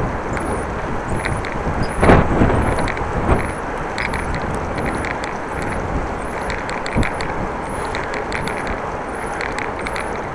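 Wind rushing over the microphone of a bicycle being ridden in strong wind, with a faint rhythmic ticking about twice a second. A louder gust or bump comes about two seconds in.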